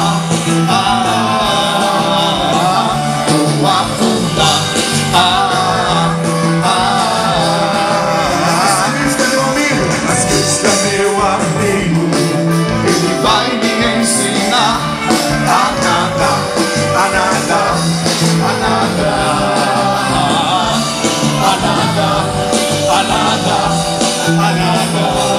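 Live gospel worship band playing an upbeat song through a stage sound system, with electric guitars and drums and singing over it.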